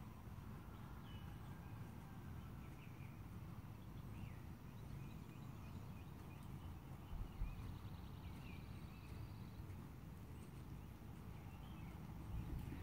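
Dull hoofbeats of a Thoroughbred horse moving over sand arena footing, over a steady low rumble. There are a few short high chirps, a thump about seven seconds in, and louder hoofbeats near the end as the horse comes close.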